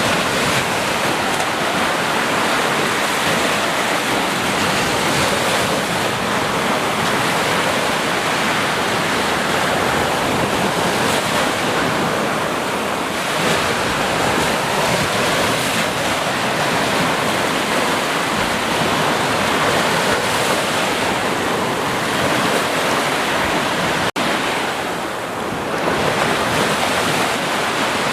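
Sea surf: waves washing in a continuous, dense rush that eases briefly a couple of times, most noticeably about 25 seconds in.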